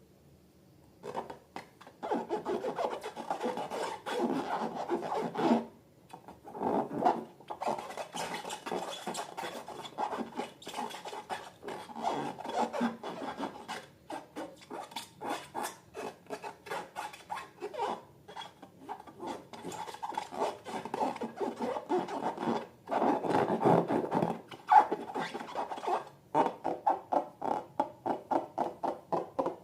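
Slime being stirred and worked by hand, a dense run of rubbing and scraping strokes with a few short pauses, settling into about three strokes a second near the end.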